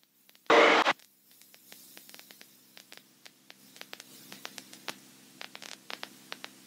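A short, loud burst of static about half a second in, then a faint hum with irregular crackles and clicks on the recorded audio feed.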